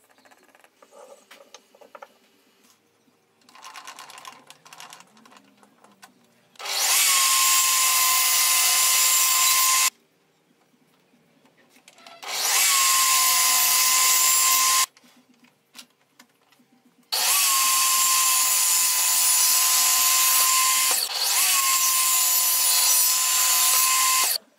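Table saw running and cutting into a wooden block, in three stretches of about three, two and a half and seven seconds, each starting and stopping abruptly, with a steady motor whine under the cutting noise. Faint pencil and handling sounds come before the first cut.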